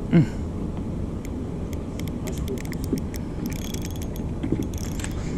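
Fishing reel clicking irregularly over a steady low rumble, with a brief loud sound of falling pitch just after the start.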